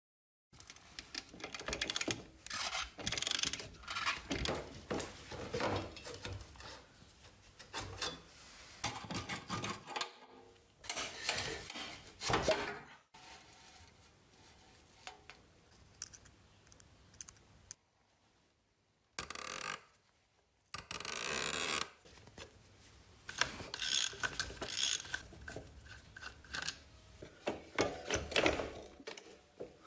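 Workshop handwork on parts: irregular clicks, knocks and scraping in bursts, with a few quiet stretches around the middle.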